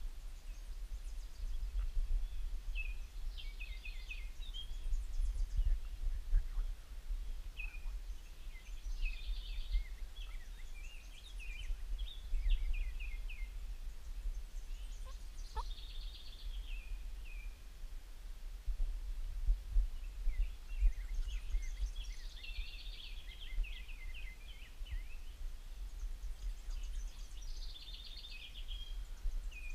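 Songbird singing high phrases of two to three seconds, repeating about every six seconds, over a steady low rumble.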